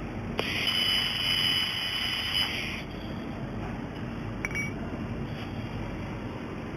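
Welding machine making a weld: a steady high-pitched whine over a hiss for about two and a half seconds, which cuts off sharply. A short click follows about two seconds later, over a steady low hum.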